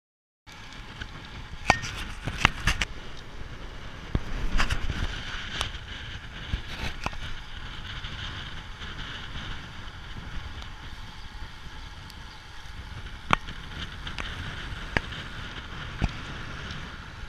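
Road bike on the move, heard from a handlebar-mounted camera: wind rushing over the microphone with tyre and road noise. Sharp clicks and knocks from bumps in the road, several in the first few seconds and a few more near the end.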